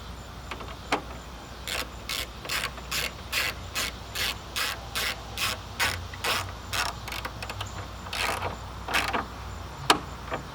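Hand ratchet with a socket clicking in quick, even strokes, about two and a half a second, tightening a bolt, then a few slower, spaced-out clicks near the end.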